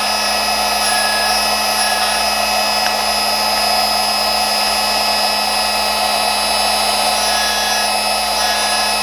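The Screw-Saver machine's motor spinning its carbide burr cutter at a steady whine while a screwdriver blade held in the chuck is pushed against it for a light finishing cut.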